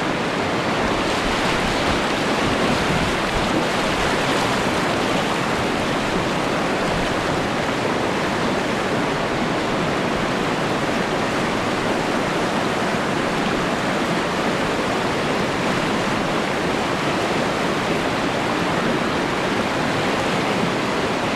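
Steady rushing of whitewater in the Upper Nantahala's continuous class 3 rapids.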